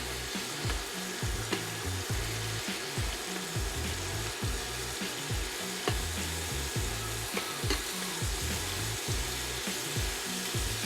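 Shrimp searing in hot bacon fat in a frying pan: a steady sizzle, with a few light clicks now and then.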